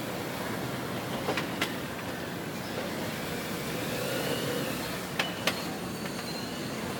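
Steady exhibition-hall noise with a Jeep Wrangler driving slowly past on the indoor dirt test track. Two pairs of sharp clicks cut through, about a second in and again about five seconds in.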